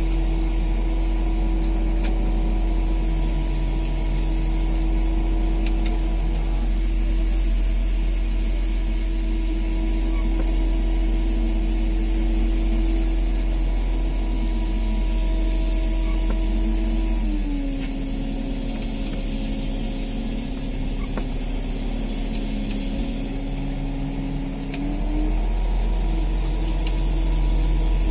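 Fishing boat's engine running steadily with a low hum and a steady tone. About two-thirds of the way through it slows, dropping slightly in pitch and loudness, then speeds back up near the end.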